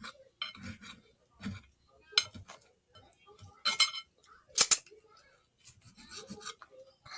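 Knife sawing through a cheese steak sub roll on a plate, in a series of short strokes, the loudest about four and a half seconds in.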